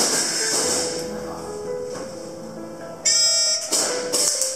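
Background music: a held melody with regular percussion hits, and a bright sustained tone about three seconds in.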